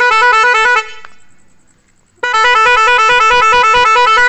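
Newly fitted windtone dual electric snail horns on an auto rickshaw sounding loudly. A short blast of under a second comes first; about a second and a half later a longer blast starts and keeps going. Each blast has a fast trilling tone.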